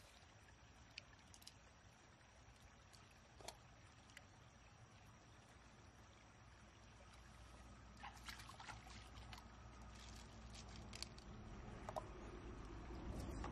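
Near silence: faint steady background with a few small clicks from fingers working inside an opened freshwater mussel shell, a cluster of them a little past the middle. The background grows a little louder near the end.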